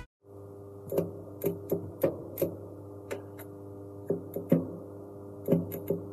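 Metalworking on a stainless-steel tank: a steady machine hum with irregular sharp clicks, about a dozen spread unevenly through the few seconds.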